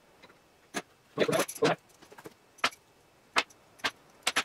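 Metal tools and small hardware clinking and knocking as they are handled and set down: a quick cluster of clatters about a second in, then single sharp clinks every half second to a second, some with a bright metallic ring.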